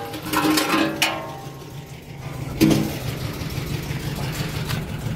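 A Chevy Silverado 1500's V6 engine idling steadily, freshly fitted with a new fuel filter, with a short knock about two and a half seconds in.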